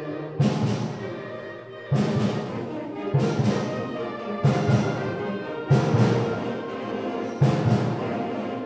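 Concert band of woodwinds and brass playing, with loud accented full-band chords struck about every one and a half seconds over sustained notes.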